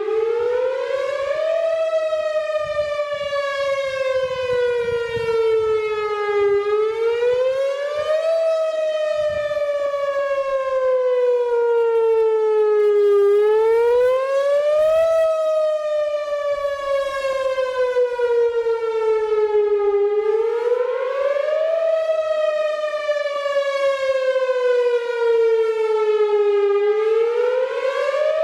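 Whelen Vortex electronic outdoor warning siren sounding a wail tone on test. The pitch rises quickly over about two seconds, then falls slowly over about five, and repeats about every seven seconds.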